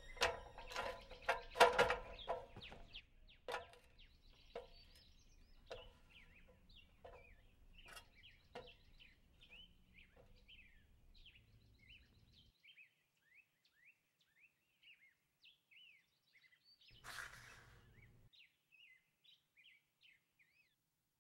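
Small birds chirping in quick, repeated short calls, with a run of sharp knocks and clicks in the first half, loudest in the first couple of seconds, and a brief burst of noise near the end.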